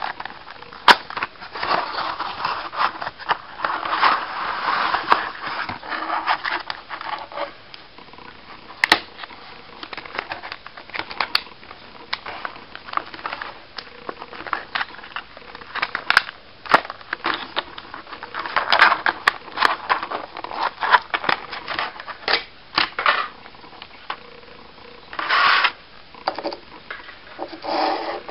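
Small cardboard box and clear plastic packaging being handled and opened: cardboard rubbing and plastic crinkling, with many scattered clicks and taps and a short burst of crinkling near the end.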